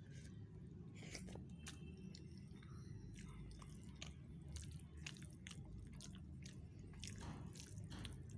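A person eating pea rice and chicken gravy by hand: chewing with irregular soft wet clicks, and fingers working the rice on a steel plate.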